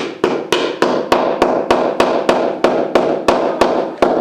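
A hammer tapping small white fittings into a flat-pack cabinet panel, in a steady run of even blows about three a second, each with a short ring.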